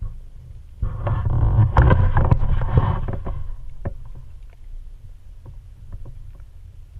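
Water sounds picked up by an underwater camera: a steady low rumble, with a loud burst of rushing, bubbling water and sharp clicks starting about a second in and fading away by about four seconds.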